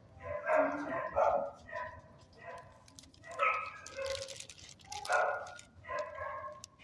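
Dogs barking in a shelter kennel, a string of short barks spread through a few seconds.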